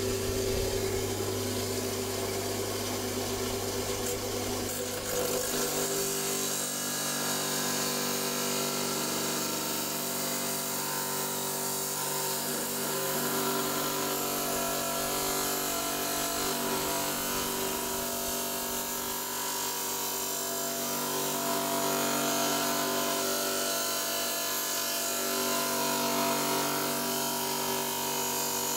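Electric stone saw running steadily as it cuts open a found stone. The motor's tone changes about five seconds in and then holds even.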